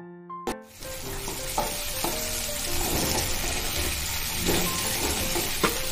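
Onion-tomato masala sizzling in hot oil in a non-stick kadai as a wooden spatula stirs and scrapes it, with a few sharper scrapes against the pan. The sizzle sets in about half a second in, while the tomato pieces cook down with salt and turmeric.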